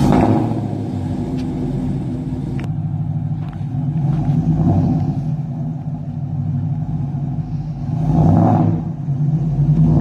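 Ram pickup truck's engine catching at the start and then running at a steady idle, rising briefly in revs twice, around four to five seconds in and again about eight seconds in.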